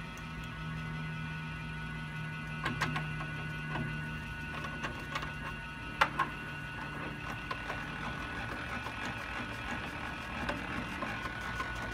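Cast-iron drill press table being swung around its steel column, with a few knocks and a sharp double click about halfway through, then the table-height crank handle being turned, its rack and pinion giving a run of rapid light ticks.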